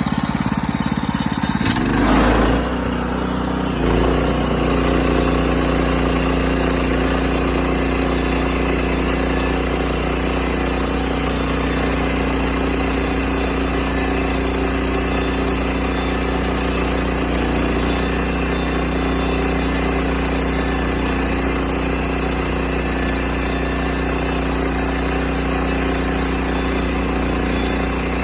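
Woodland Mills HM126 portable band sawmill running while sawing yellow pine, its engine running at a steady speed. There is a brief surge about two seconds in, then an even drone.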